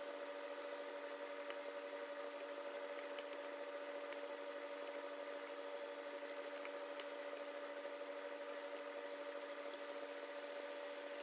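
Steady electrical hum under faint sizzling of a tomato and tuna sauce cooking in a nonstick frying pan, with scattered light ticks as a wooden spatula stirs it.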